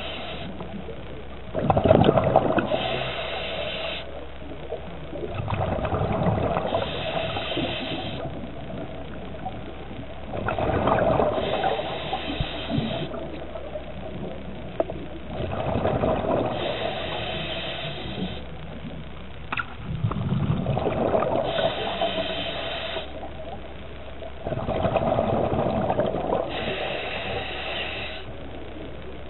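Scuba diver breathing through a regulator underwater: a hiss on each inhale and a burst of bubbles on each exhale, about one breath every four to five seconds.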